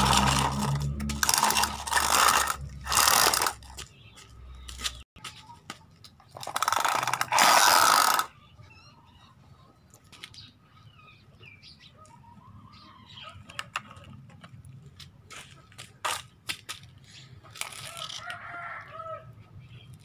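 Plastic toy construction vehicles and sand scraping on concrete, in loud rasping bursts during the first eight seconds, then quieter scattered clicks and knocks of the toys. A short pitched call sounds near the end.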